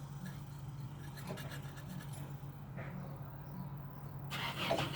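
A steady low engine hum with a few faint clicks, then a louder, rushing burst of noise near the end.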